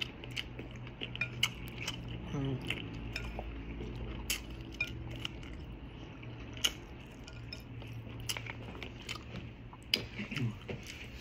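Plates and cutlery clinking now and then at a meal, as scattered sharp clicks over a low steady hum.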